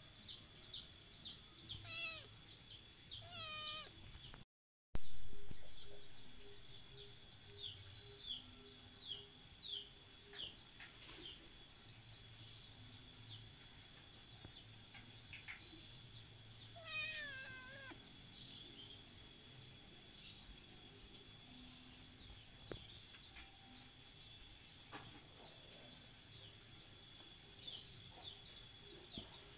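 Kittens meowing: a few drawn-out meows that fall in pitch, about two seconds in, again a moment later, and once more around the middle.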